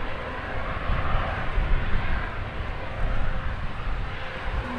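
Bombardier Global 6000 business jet's engines running, a steady jet rumble with a faint thin whine, easing off slightly near the end.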